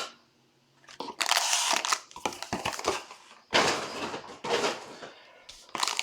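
Plastic trading-card pack wrappers crinkling as packs are handled and opened, in bursts of crackling after about a second of quiet.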